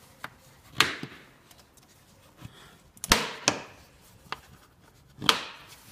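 Latches on a Hyundai Accent's air filter housing being snapped shut one after another to clamp the lid: four sharp clicks over a few seconds, with a few fainter ones between.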